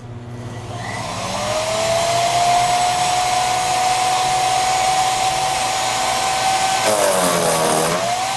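A 14-amp electric chipper shredder's motor switching on and spinning up with a rising whine, then running steady. About seven seconds in, the motor bogs down in pitch with a harsh crackling burst as a branch is fed in and chipped, then climbs back to speed.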